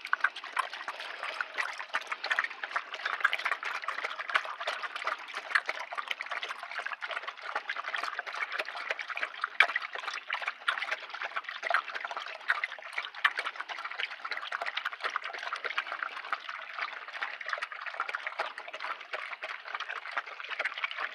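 Three dogs eating dry kibble from stainless steel bowls: continuous rapid crunching and chewing, with kibble clicking against the metal.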